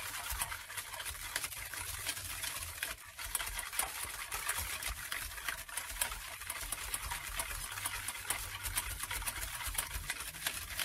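A wire whisk stirring a thin chocolate milk mixture in a stainless steel saucepan: a steady run of quick clicks and scrapes of the wires against the pan, with a brief pause about three seconds in.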